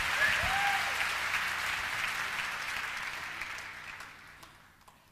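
Concert audience applauding, dying away steadily over about five seconds.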